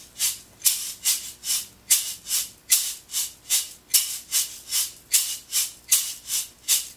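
Tube shaker filled with shot, swung back and forth so the shot sweeps from end to end in an even run of hissy strokes, about two and a half a second. Wrist accents pick out a 3+3+2 pattern with the stress on beat one.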